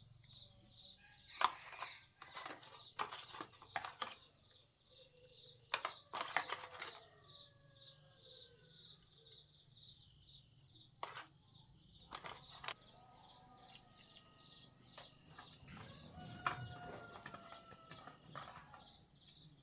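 Steady chirring of insects, a quick pulsing trill under a high steady whine, with scattered short clicks and knocks. The loudest clicks come about a second and a half in and around six seconds in.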